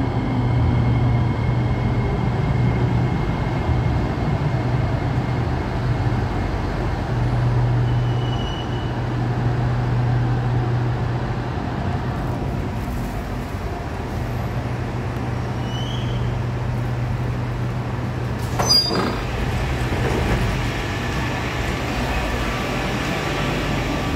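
SMRT Kawasaki-Sifang C751B metro train pulling into an underground station and standing at the platform, with a steady low hum. A brief sharp clatter comes about three-quarters of the way through.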